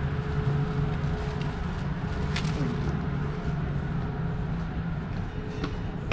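Rainy city street ambience: a steady low traffic rumble with a constant hum. Two short sharp sounds cut through it, about two and a half and five and a half seconds in.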